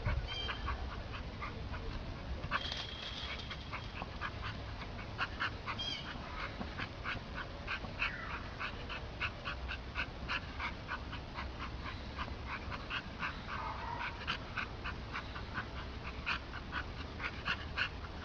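A dog whimpering in short, high, repeated cries, several a second, with one longer sliding whine near the end.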